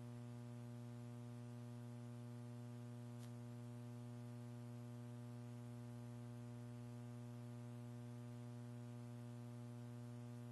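Steady electrical mains hum with a buzzy edge, unchanging throughout, and one faint click about three seconds in.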